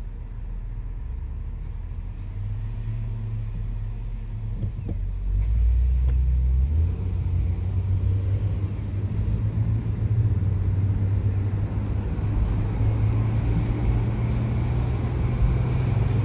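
Steady low rumble of a car on the move, growing louder about five to seven seconds in.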